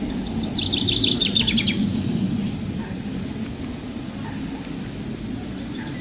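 Small songbirds singing: a fast trill in the first two seconds and an even series of about a dozen very high, thin notes that ends about five seconds in, over a steady low rumble.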